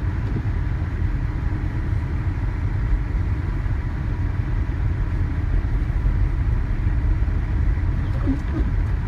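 A car driving on a snow-covered road in a ground blizzard: a steady, dense low rumble of road and wind noise, with a faint steady whine above it.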